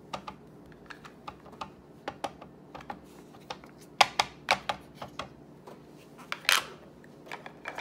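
A hard plastic ink pad dabbed again and again onto clear acrylic stamps, making irregular light taps and clicks, loudest about four seconds in, followed by a louder clack a little after six seconds.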